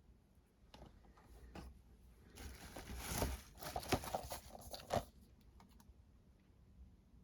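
Packaging being handled: crinkling and tearing with sharp clicks, a few at first, then a busy, louder stretch from about two to five seconds in.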